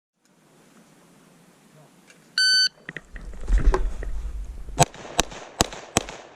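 A shot timer's start beep sounds once, briefly, about two and a half seconds in. Handling noise follows as the pistol is drawn from concealment. From about five seconds in come four shots from a Glock 32 pistol in .357 SIG, roughly 0.4 s apart.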